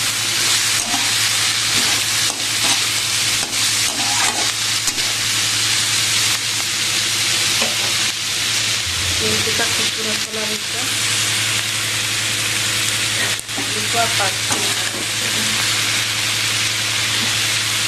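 Chopped flat beans (sem) sizzling in hot oil in a kadhai, stirred and turned over with a spatula that scrapes the pan now and then. A steady low hum runs underneath.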